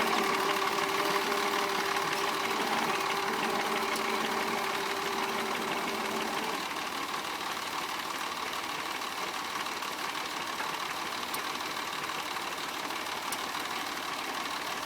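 Tractor engine running steadily under ploughing load. A steady tone in its drone stops about six and a half seconds in, and the sound grows gradually a little quieter.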